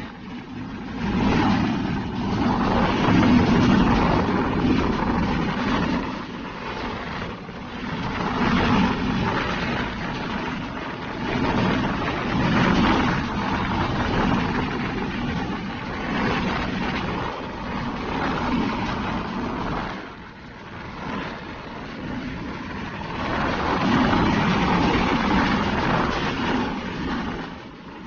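Road traffic heard from a moving vehicle on a highway: steady engine and tyre noise that swells and fades as other vehicles pass by.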